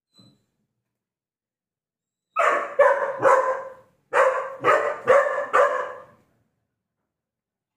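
Golden retriever puppy barking: a quick run of three barks about two seconds in, then after a short pause a run of four more.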